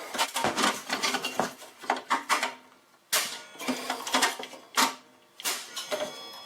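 Repeated mallet blows on the metal fence rails of an Evolution Rage 4 chop saw: a dozen or so irregular knocks, each with a short metallic ring, as the rails are bent out to straighten the saw's warped fence.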